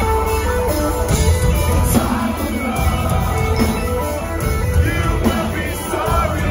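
Post-hardcore band playing live through a PA, heard from the crowd: electric guitars, bass and drums, heavy in the low end, with a singer's voice over them.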